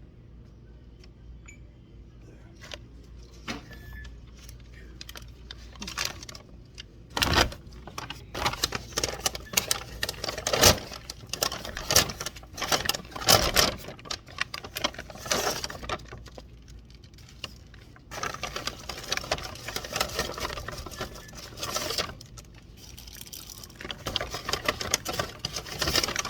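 Close handling of plastic wrapping and small items: crinkling plastic with many quick clicks, clinks and knocks, busiest from about seven seconds in.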